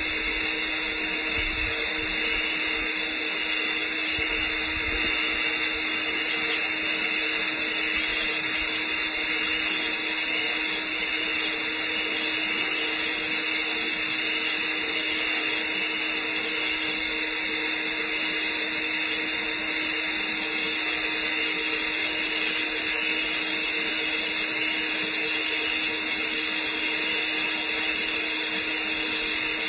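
TIG welding arc burning steadily on steel pipe while filler rod is fed into the weld pool during the cap pass: an even hiss with a constant low hum underneath.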